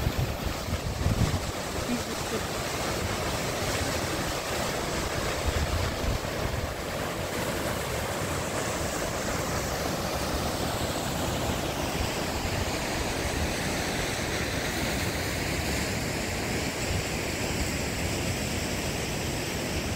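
Steady rush of water, with wind buffeting the microphone in the first couple of seconds.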